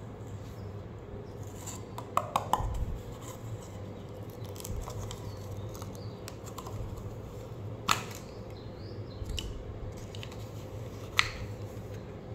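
Slime being handled in a plastic tub, with a few sharp clicks and pops: a quick cluster about two seconds in and single louder clicks near eight and eleven seconds.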